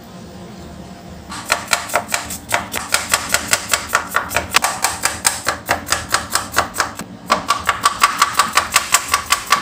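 Broad-bladed kitchen knife chopping red onion on a wooden cutting board: fast, even knocks of the blade on the board, about five a second, starting about a second in.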